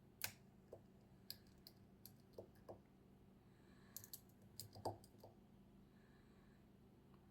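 Lock pick clicking and tapping against the pins inside a KESO 8000 Omega² high-security lock during picking: scattered sharp clicks, with a quick cluster of them about four to five seconds in.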